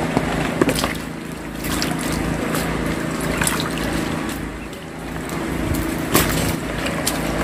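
Cut cubes of aloe vera gel being washed by hand in water: water sloshing and trickling as the pieces are rubbed and stirred to rinse off their slime.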